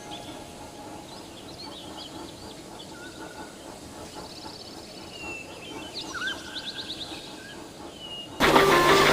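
Birds chirping over a faint, even outdoor background, with a quick run of rapid chirps about six to seven seconds in. Near the end loud music cuts in suddenly.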